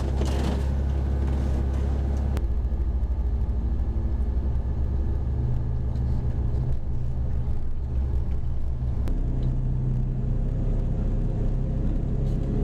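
Boat engine running underway, heard inside a small pilothouse cabin as a steady low drone. The hum shifts abruptly about two seconds in and again near nine seconds.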